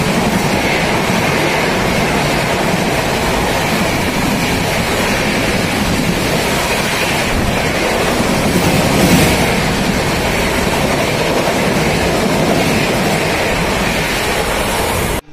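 LHB passenger coaches passing at high speed, making a steady loud rush of wheels on rail and air. There is a slight swell about nine seconds in, and the sound cuts off suddenly near the end.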